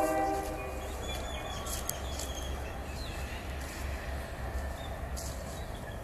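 A train horn's steady chord that cuts off about half a second in, followed by a steady low rumble.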